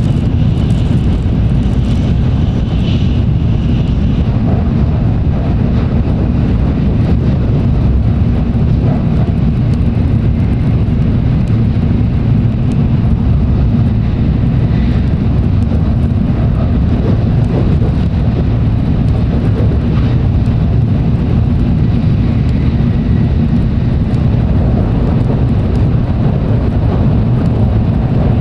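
Tokaido Shinkansen train running at speed, heard from inside the passenger car: a steady, loud, low rumble of wheels and rushing air.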